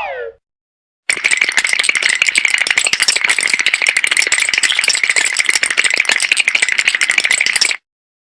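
Cartoon rattle sound effect: a fast, dense clattering rattle that runs for about six and a half seconds and then cuts off suddenly. Just before it, a short falling whistle-like glide ends.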